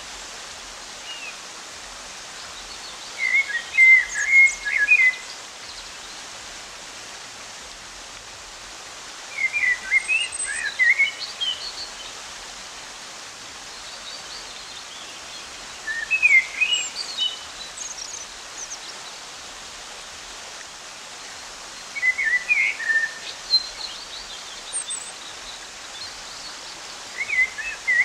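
Steady rush of a waterfall, with a bird's song standing out over it: short phrases of quick, chirpy notes that come back about every six seconds.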